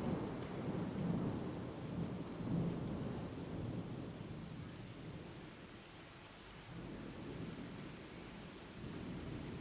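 Thunder rolling in a heavy thunderstorm with rain falling: a low rumble that dies away over the first half, then builds again in slow swells near the end.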